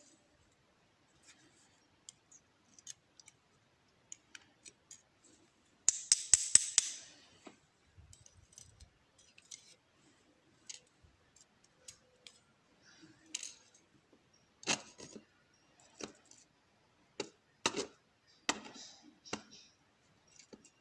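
Small metal lock parts clicking and clinking as a pin-tumbler lock is taken apart and its pins and springs are removed. There is a quick cluster of loud sharp clicks about six seconds in, then scattered single clicks, with a denser run of them in the second half.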